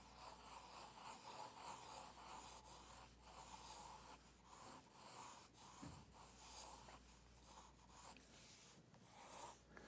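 Graphite pencil scratching faintly on paper as it sketches a circle in many overlapping looping strokes.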